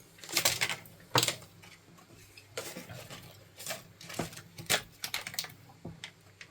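Irregular clicking and rustling of packaging being handled at close range, in short uneven bursts.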